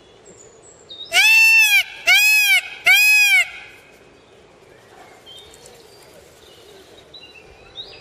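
Indian peafowl (peacock) calling three times in quick succession, loud, each call rising then falling in pitch. Faint high bird chirps follow.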